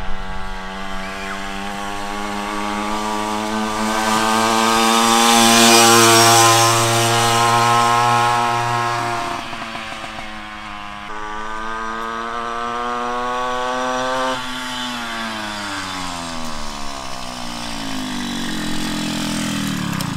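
Two-stroke Puch moped engine, fitted with a big-bore kit and a high-compression head, ridden past on its first test run. Its buzzing note climbs and is loudest about six seconds in, dips around nine seconds and climbs again, then falls steadily as the moped slows near the end.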